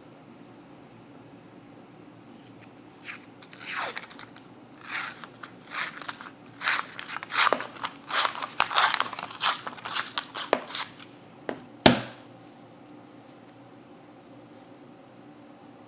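Paper wrapper being torn and peeled off a can of Pillsbury crescent roll dough in a run of rasping tearing strokes, then one sharp pop about twelve seconds in as the cardboard tube bursts open.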